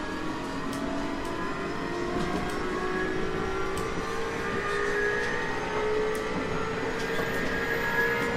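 JR East 719 series electric train's traction motors giving their jet-like whine, rising steadily in pitch as the train gathers speed, over the rumble of wheels on rail.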